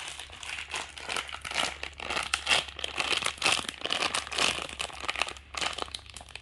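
Packaging being crinkled and handled: a dense, steady run of crackles and rustles that thins out near the end.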